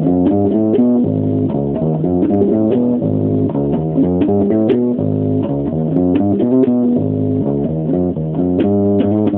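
Electric bass guitar played solo, improvising a riff of quick plucked notes that change pitch several times a second.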